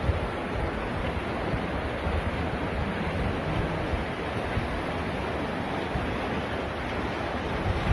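Fast muddy floodwater rushing and churning: a steady, even wash of noise, with wind buffeting the microphone underneath.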